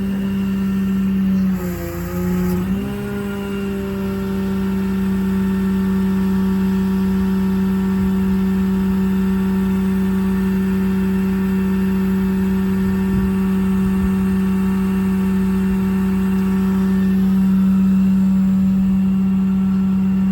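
The service truck's crane running under power, a steady mechanical whine from its drive. The pitch dips briefly and recovers about two seconds in, as the trigger speed changes.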